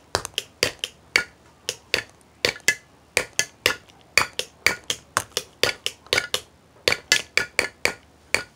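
Drumming by hand on a makeshift drum set: rapid, uneven strikes at about three to four a second, each with a short bright ring, stopping just before the end.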